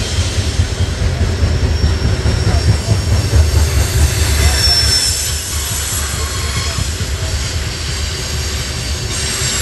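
Loaded coal train hopper cars rolling past: a steady low rumble of steel wheels on rail, loudest in the first half, with thin high-pitched wheel squeals coming and going, one standing out about five seconds in.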